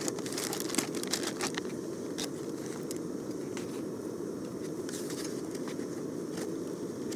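Small canister gas camping stove burning steadily under the pot. Plastic bag crinkling during the first second and a half as cooked chicken is tipped out, then a few light clicks as a plastic spatula stirs in the noodle pot.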